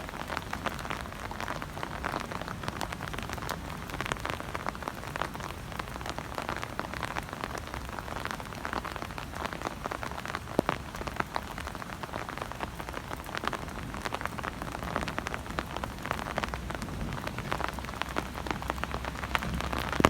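Thunderstorm rain falling steadily, with many small, irregular ticks of drops striking close by over a low, steady rumble. One sharper drop hit stands out about ten and a half seconds in.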